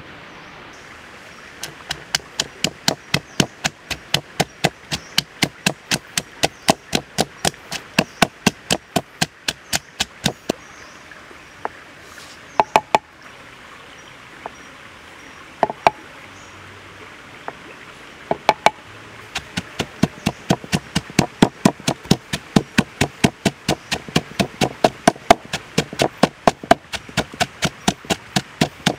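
Pestle pounding chillies, garlic and other spice-paste ingredients in a wooden mortar: steady knocks about three a second. Partway through the pounding stops for several seconds with only a few single knocks, then resumes.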